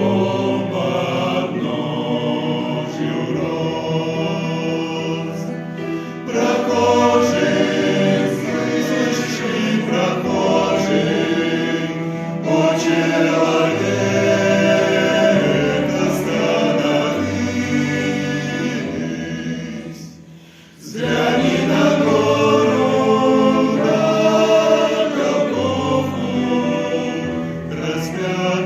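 Men's vocal ensemble singing a hymn in harmony over steady low bass notes, with a brief break about twenty seconds in before the singing resumes.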